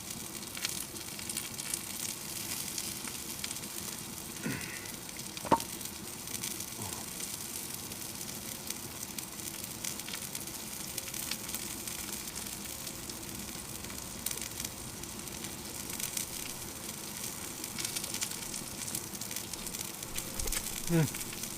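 Steady crackling hiss of a wood fire burning in a titanium wood-burning stove, with a single sharp click about five and a half seconds in.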